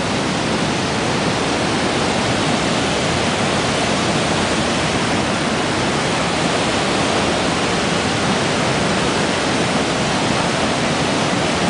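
Steady, loud rush of a fast snowmelt creek tumbling over boulders.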